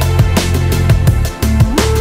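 Electronic background music with a heavy bass and a steady drum beat. A synth note slides up near the end after a brief dip.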